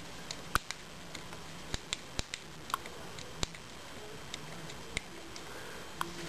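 Power button on a Western Digital My Book Essential Edition's plastic front panel being pressed over and over, giving a string of small, sharp, irregularly spaced clicks: the button clicks and works again now that the panel is reassembled.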